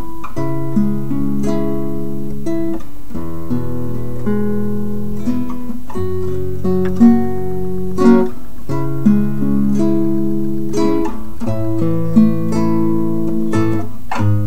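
Soundtrack music: an acoustic guitar picking chords, with a few sharp strummed accents.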